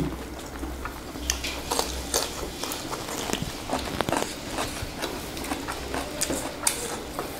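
Close-miked eating sounds: chewing and biting through mouthfuls of vegetables, omelette and rice, with irregular small clicks and smacks, over a faint steady low hum.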